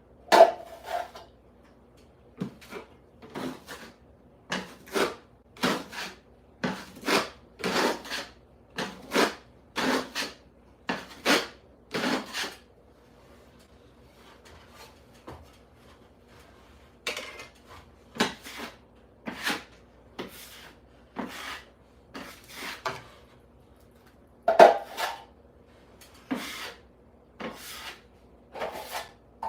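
Hand tool strokes rasping across a surface during ceiling repair, about two strokes a second. They pause for a few seconds around the middle, then start again.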